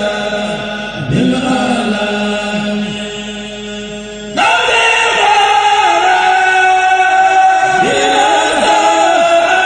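Men's choir chanting a Mouride khassida in unison, long held notes sliding between pitches. A little over four seconds in the chant turns abruptly louder and fuller.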